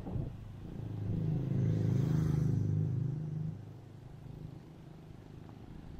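A motor vehicle's engine passing close by, swelling to its loudest about two seconds in and fading away by three and a half seconds, over a low steady road background.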